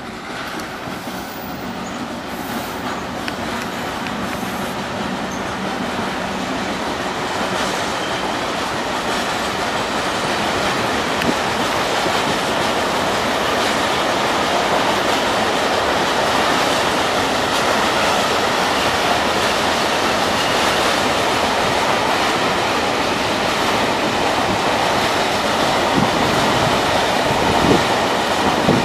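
Freight train of tank wagons rolling past: a steady rumble of steel wheels on rail that grows louder over the first dozen seconds and then holds, with a few sharp clacks of wheels over rail joints near the end.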